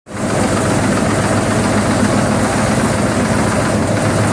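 TRUMPF Trumatic 5000R CNC punching machine running, a loud steady machine noise with a constant hum.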